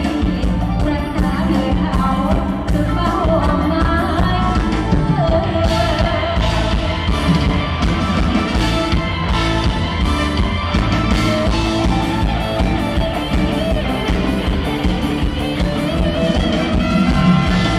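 Live Thai Isan stage band music with a singer's voice over it, playing on over a steady beat.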